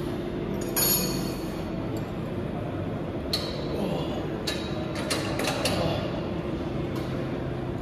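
Gym ambience: a steady hum with scattered metallic clicks and clinks from weight equipment, including one brief ringing clink about a second in and a cluster of sharp clicks later on.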